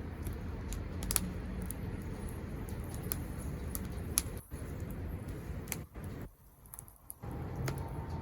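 Wood fire crackling, with scattered sharp pops and snaps over a low steady rumble that briefly drops away twice, about halfway and again around three-quarters of the way through.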